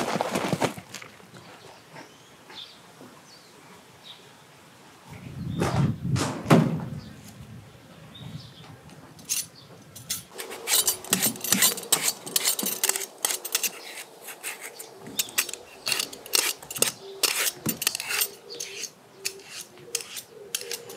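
A woven straw basket of potatoes is set down on a straw mat with a dull thump about six seconds in. From about ten seconds on, a hand vegetable peeler scrapes over a steamed potato in many quick, short strokes.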